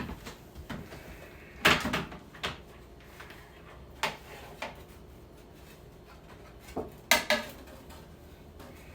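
Hard kitchen items being handled, knocking and clattering against each other and hard surfaces. There are several separate knocks, with the loudest clusters about two seconds in and again about seven seconds in.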